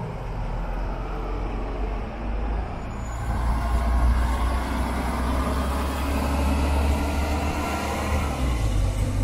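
Articulated city bus driving past close by with a low engine rumble, loudest about four seconds in as it passes, then pulling away with the engine note rising, over general road-traffic noise.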